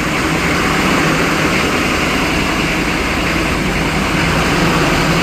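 1995 Chevy 3500's 6.5L V8 diesel running on the throttle just after a hard cold start, held above idle with the gas pedal to keep it from stalling. It is struggling to stay running, which the owners suspect may be gelled fuel.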